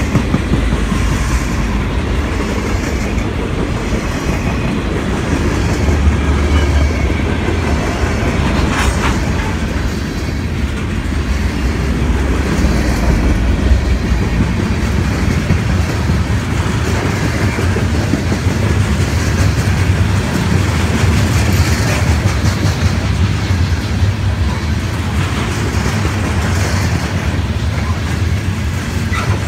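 Norfolk Southern freight train cars rolling past close by: a steady heavy rumble with the clacking of steel wheels over the rail joints.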